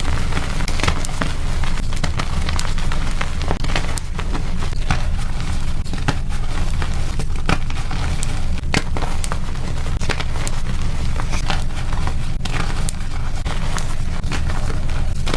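Blocks of gym chalk being crushed and crumbled, a dense run of crisp crunches and crackles, over a steady low rumble.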